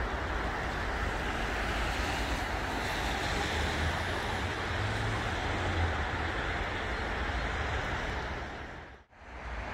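Steady rushing outdoor noise with a low wind rumble on the microphone, dipping away briefly near the end.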